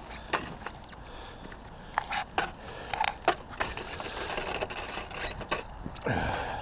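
Footsteps crunching irregularly in deep snow. Near the end a tone falls steeply in pitch.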